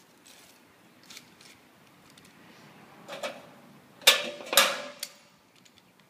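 Hand pop-rivet gun being squeezed against the downpipe pop's flange in a metal quad gutter, giving two loud sharp clacks about four seconds in, a little after a softer one, as it pulls a rivet. Faint clinks of loose rivets being handled come before.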